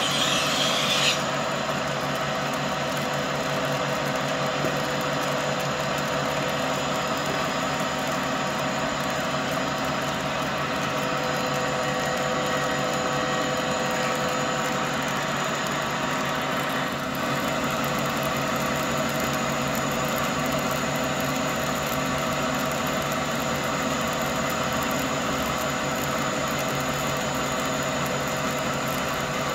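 Okuma lathe running steadily, spinning a steel shaft in its three-jaw chuck, with a steady hum of several tones. A high-pitched squeal of the cutting tool taking a cut stops about a second in.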